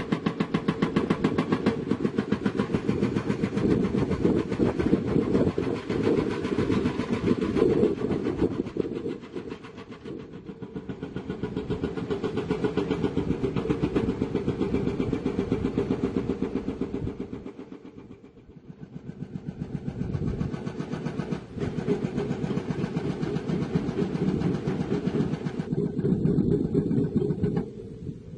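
Excavator-mounted hydraulic rock hammer pounding rock in a fast, even stream of blows, dropping in level twice and stopping shortly before the end.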